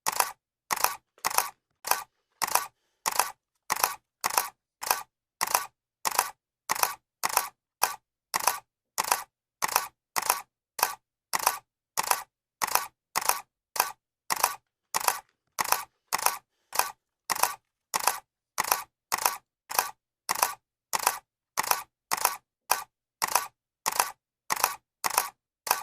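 Camera shutter clicking over and over, about two clicks a second. Each click is a quick double snap.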